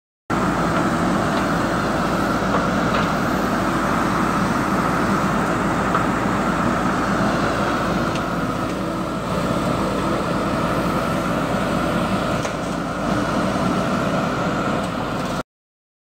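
JCB backhoe loader's diesel engine running steadily under load while the backhoe arm and bucket work, clearing brush.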